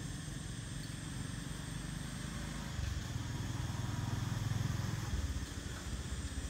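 Low engine rumble of a passing motor vehicle, swelling from about three seconds in and easing off near the end, over a steady faint hiss.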